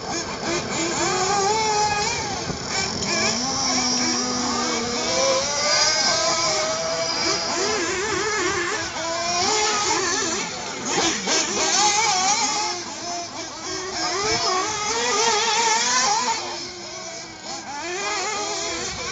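High-pitched whine of 1/8-scale nitro RC buggy engines, several at once, the pitch rising and falling over and over as they accelerate and back off.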